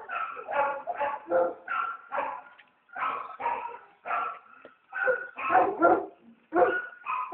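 Dogs barking repeatedly, two or three short barks a second with brief pauses between runs.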